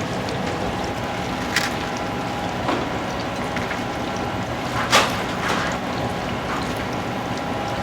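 Working kitchen noise: a steady hum and hiss of equipment, with a few sharp clinks of utensils, the loudest about five seconds in.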